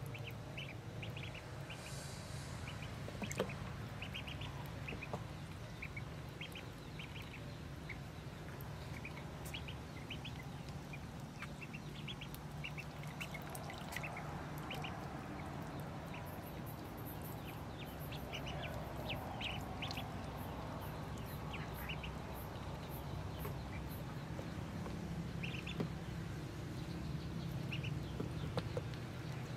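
A brood of ducklings peeping, many short high calls overlapping and scattered throughout, over a steady low hum.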